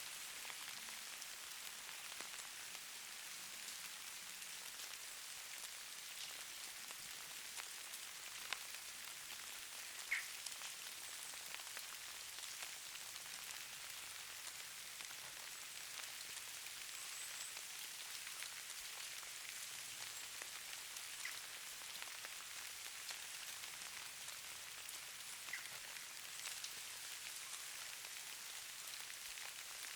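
Falling snow pattering on surfaces: a steady fine hiss full of tiny ticks, with a few sharper ticks, the clearest about ten seconds in.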